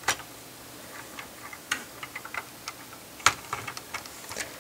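Small plastic clicks and clatter from a LEGO station wagon's wheels running rough over the studs of a LEGO plate as it is pushed backward. The clicks come irregularly, with two sharper clacks, one right at the start and one about three seconds in.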